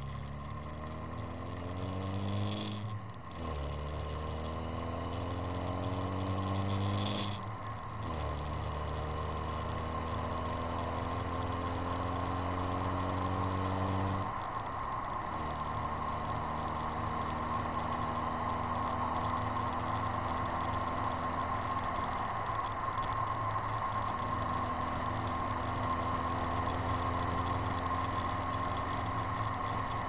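Car engine accelerating through the gears. Its pitch climbs, then drops at a gear change about three seconds in, again near eight seconds and at about fourteen seconds, then holds steady at cruising speed. Wind and tyre noise hit a camera mounted outside the car.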